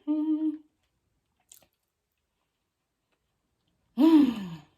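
A woman's short voiced sound held on one pitch right at the start, then near silence, then a breathy vocal sound sliding down in pitch near the end.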